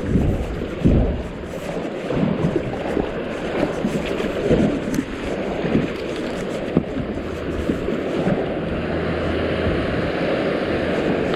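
Rushing river water around a kayak. Wind buffets the microphone with low thumps in the first couple of seconds.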